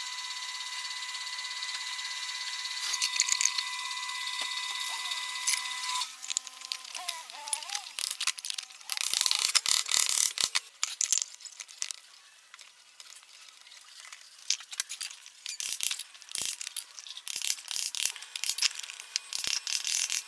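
Tools working on a stainless steel exhaust silencer box. A steady high-pitched whine with hiss lasts about six seconds, then a tone falls away, and then comes a run of irregular sharp clicks and metallic taps.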